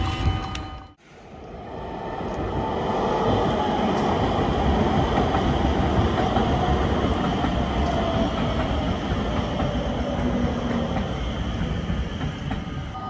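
Rotterdam metro train running on the rails: a steady rumble of wheels and running gear. The sound drops out briefly about a second in, then swells back over the next couple of seconds, with a faint whine sliding down in pitch midway.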